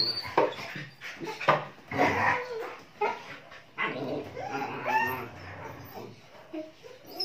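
German Shepherd puppies play-fighting, with irregular short barks, yips and whines and scuffling on a tile floor.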